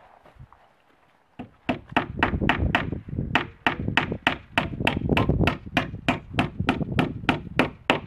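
A hammer driving nails into plywood roof sheathing with steady, evenly spaced blows, about three a second, starting a little over a second in. Each strike has a solid low thud from the board.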